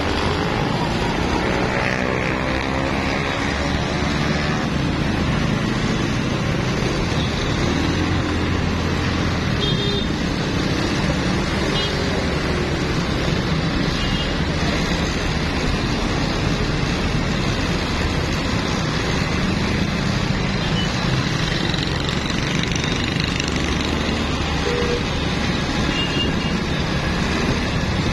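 Steady city road traffic: engines and tyre noise, with one engine note rising in the first few seconds and a few short faint high tones, such as distant horns, later on.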